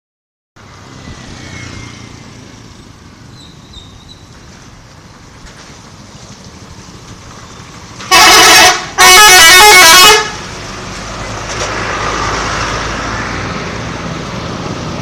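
Indonesian 'telolet' bus horn, a multi-tone musical horn, sounding two loud blasts about eight seconds in: a short one, then a longer one of about a second, its notes stepping through a little tune. Road traffic noise runs around it.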